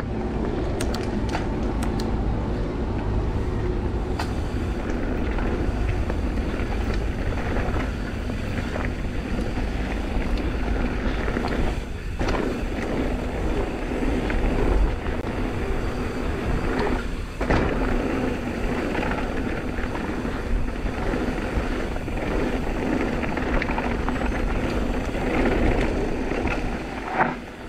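Intense M16 downhill mountain bike ridden fast down a dirt trail: a steady rush of tyre and riding noise, broken by short knocks and rattles from the bike over bumps and roots.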